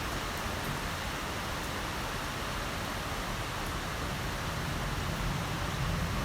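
Heavy rain falling steadily, an even hiss, with a low rumble that grows a little louder near the end.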